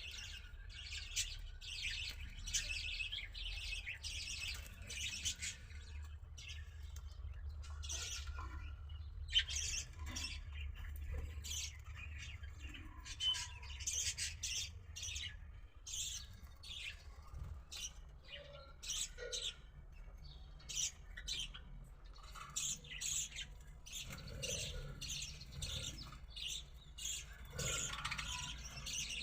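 Pet lovebirds chattering and squawking: a dense, irregular stream of short, high-pitched chirps and squawks, over a low steady hum.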